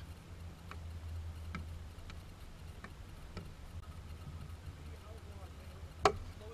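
A bat striking a pitched ball once, a single sharp crack about six seconds in, over a steady low wind rumble and a few faint ticks.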